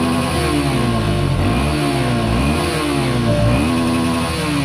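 Suzuki Gixxer SF250's single-cylinder engine revved through its stock exhaust, heard close to the muffler outlet. There are about four throttle blips, each rising in pitch and then falling back toward idle.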